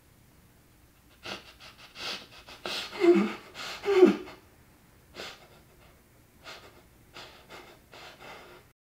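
A person sobbing in gasping breaths, the loudest two about three and four seconds in with a catch of the voice, followed by fainter breaths.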